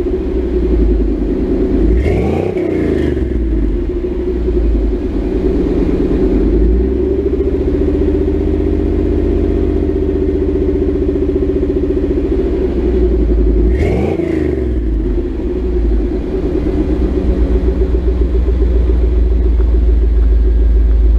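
Chevy 305 V8 running through a Thrush muffler with no catalytic converter, blipped twice in quick rev-and-drop throttle stabs and held slightly higher for several seconds in between. The exhaust is still muffled, which the owner calls way too quiet.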